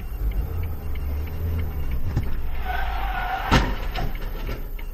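Car engine and road noise heard from inside the cabin, then tyres squealing under hard braking and a single sharp bang about three and a half seconds in, as the car strikes a van in front.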